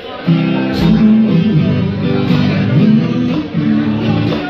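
Live acoustic guitar strummed with a hand drum, the song kicking back in loudly about a quarter second in after a brief dip.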